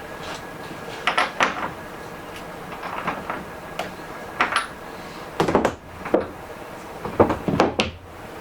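Irregular knocks and clunks on hard surfaces, in small clusters, the loudest near the end.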